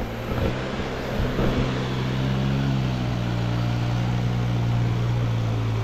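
Motorcycle engine running at low revs as it rides through fast-flowing floodwater over a road, its note shifting in the first couple of seconds and then holding steady, over the rush of the water.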